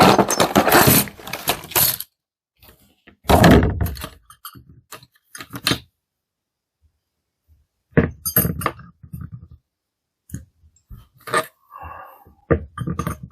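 A rivet nut tool kit being unpacked and handled: rustling stretches, rattles and sharp clinks and knocks of small metal and plastic parts, in separate bursts with quiet gaps between.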